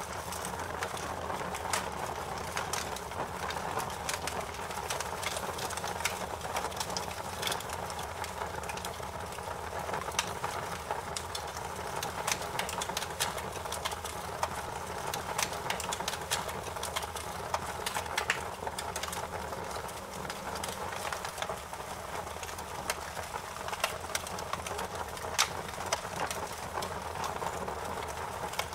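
Fire in a fireplace crackling: frequent sharp pops and snaps over a steady rushing hiss, with one louder pop near the end.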